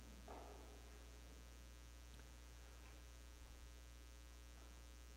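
Near silence with a steady low electrical mains hum and a brief faint noise about a third of a second in.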